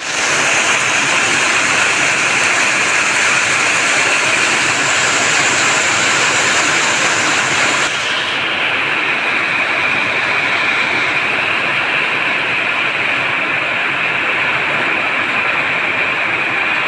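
Express train running fast in heavy monsoon rain: a steady rushing noise of train and rain together. The high hiss drops away abruptly about eight seconds in.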